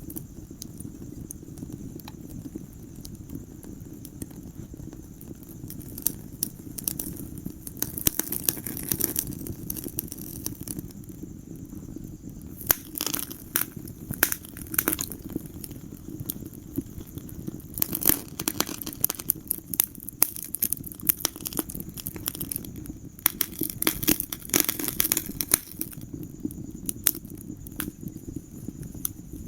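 Wood fire crackling in a fireplace: a steady low rush of burning with frequent sharp pops and snaps, which come in denser flurries every few seconds.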